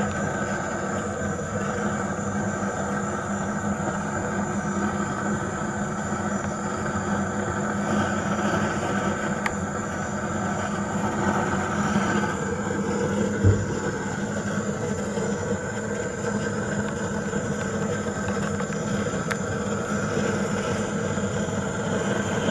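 Steady hum of a small motor, a low drone with a faint high whine above it, and a single thump about thirteen and a half seconds in.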